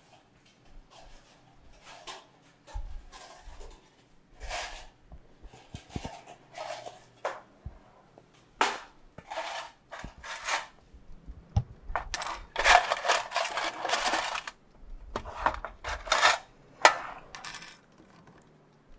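Small metal parts clinking and rattling in a metal tin as a hand rummages through it, in irregular bursts of clatter that grow busier past the middle.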